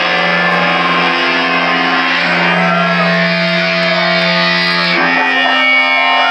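Live band playing amplified, dominated by electric guitar holding sustained chords that shift to a new chord about five seconds in, with a few short bending notes over the top.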